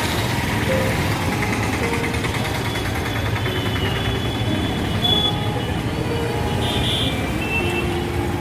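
Busy city street traffic: a steady rumble of passing auto-rickshaws, motorcycles and cars, with a few brief high beeps about five and seven seconds in.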